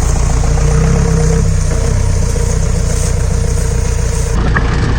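Open jeep's engine running steadily at low revs, a continuous low drone.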